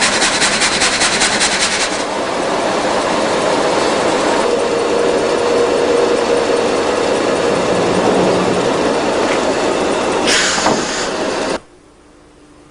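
Multi-blade rip saw machine running with a loud, steady mechanical noise. A rapid rattle stops about two seconds in; near the end comes a brief sharp hiss, then the noise cuts off abruptly, leaving a faint hum.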